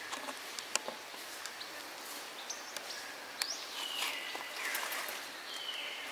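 Forest ambience with scattered small clicks and crackles, and from about halfway in several high, thin, whistle-like animal calls, each holding a pitch and then stepping down.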